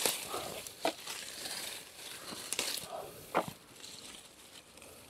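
Rustling and crackling of aronia bush foliage and stems being handled during hand-picking, with a few sharp snaps: one at the start, one about a second in, and one past the middle.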